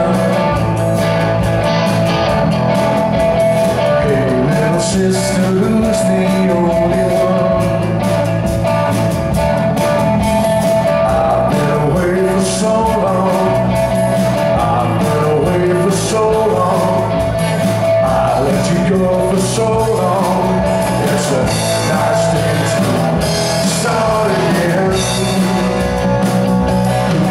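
Live rock band playing: electric guitars and a drum kit, with a male singer's voice in the mix.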